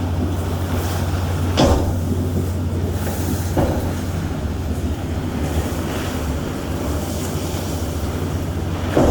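Stormy weather: a steady low rumble under a noisy rush of rain and wind, with a few short thumps.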